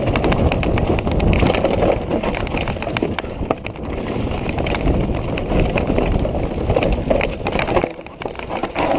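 Downhill mountain bike clattering down a rocky trail: a continuous rattle of tyres, chain and frame over rocks with many sharp knocks, easing off for a moment near the end.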